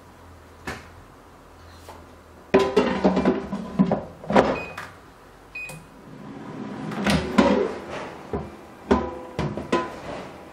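Metal air-fryer basket clattering as it is handled and pushed into the fryer, a run of irregular knocks with a ringing tail. Two short electronic beeps come from the air fryer about a second apart near the middle.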